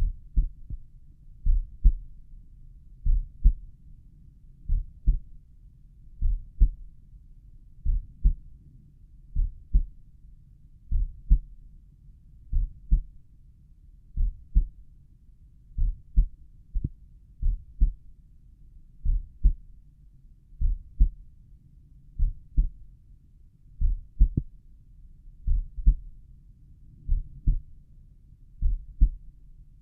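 Slow resting human heartbeat heard through a stethoscope at the tricuspid area: a steady lub-dub of two low thumps close together, repeating about every second and a half.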